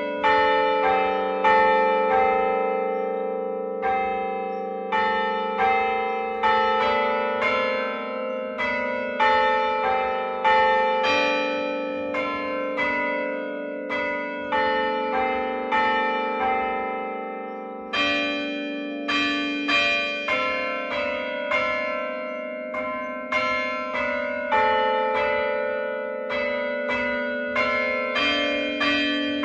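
Church tower bells being rung, a new bell struck about every second, each tone ringing on and overlapping the next, the pitches changing from stroke to stroke.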